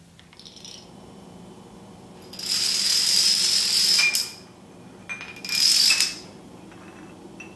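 Rows of plastic dominoes toppling in quick succession on a concrete floor: a dense clatter lasting about two seconds, then a second, shorter clatter of about half a second.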